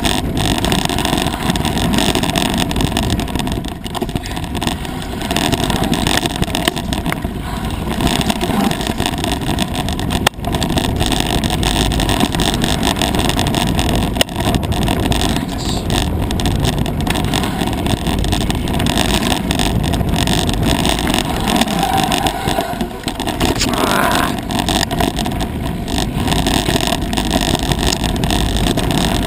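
A mountain bike rattling and rumbling over a rough dirt singletrack, with wind rushing over the action-camera microphone, in a steady loud noise. A couple of sharp knocks from bumps in the trail come about ten and fourteen seconds in.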